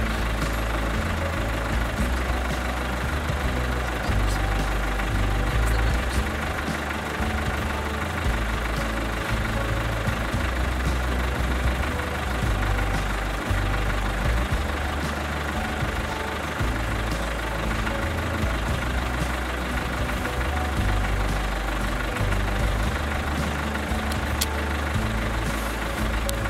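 A vehicle engine idling steadily, with a low rumble that rises and falls unevenly underneath.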